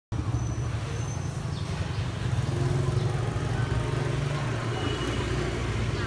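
Steady low rumble of road traffic.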